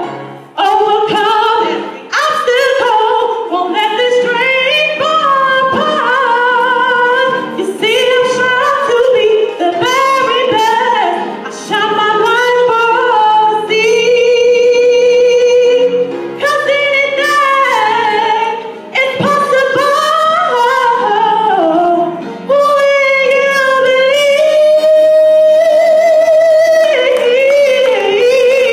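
A woman singing solo into a handheld microphone, amplified in a hall, gliding between notes and holding long ones with vibrato, as in the held notes about halfway through and near the end.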